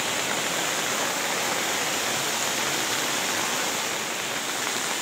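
Heavy rain pouring onto muddy floodwater while the flood runs in a steady rush past stumps and through a breached wall.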